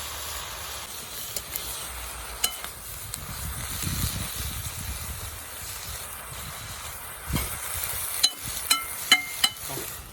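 Food sizzling steadily in a hot pan while it is stirred, with a few sharp metallic clinks of a utensil against the pan, most of them near the end.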